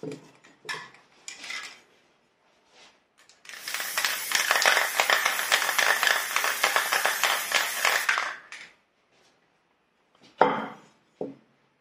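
Metal can of acrylic paint shaken hard, clinking for about five seconds, as an aerosol's mixing ball does. Two short knocks follow near the end.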